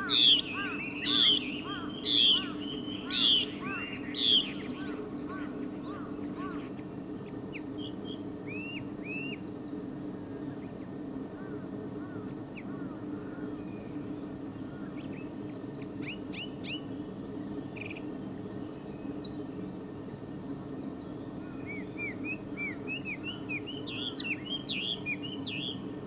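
Chinese hwamei singing: five loud, slurred whistled phrases about a second apart at the start, then scattered quieter notes, and a fast run of whistles near the end. A steady low hum lies underneath.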